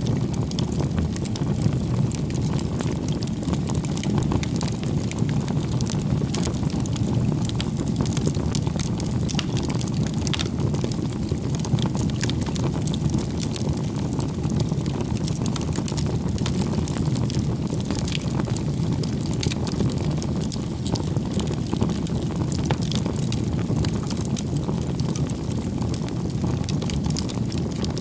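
Wood bonfire burning: a steady low rush of flame with frequent small crackles and pops throughout.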